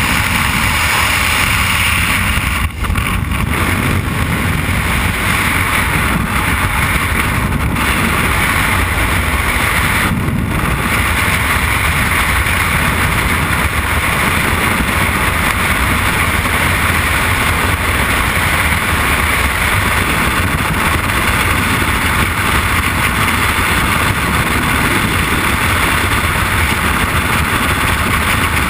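Loud, steady rush of freefall wind blasting over a helmet-mounted camera's microphone, beginning in the slipstream at the open aircraft door.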